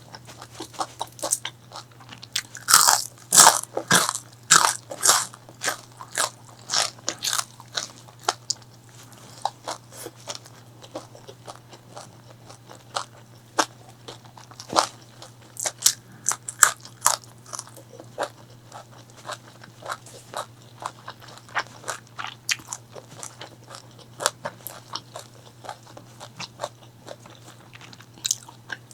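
Close-miked eating: crunchy bites and chewing of crispy fried chicken, a rapid run of loud crackly crunches a few seconds in, then quieter, scattered crunches. A faint steady low hum sits underneath.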